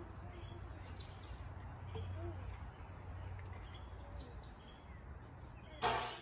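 Faint outdoor ambience: scattered bird chirps and a steady high insect drone over a low rumble, with a brief louder noise near the end.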